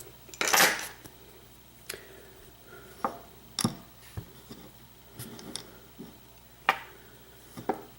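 Small metal clicks and ticks of disassembled lock pins and picking tools being handled on a work surface, scattered one at a time, with a short rustle about half a second in.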